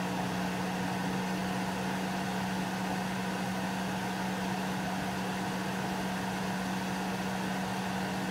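A steady, unchanging low mechanical hum over an even hiss, like a kitchen appliance or fan motor running.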